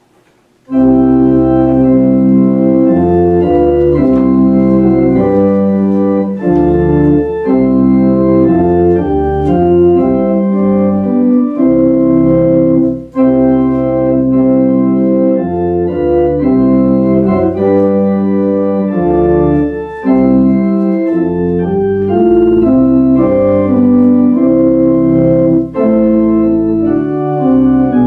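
Church organ playing a hymn tune in held chords with a bass line underneath, beginning abruptly about a second in.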